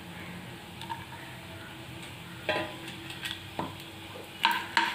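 Small pieces of coconut frying in ghee in a pan, a low steady sizzle. A few light clicks come in the second half.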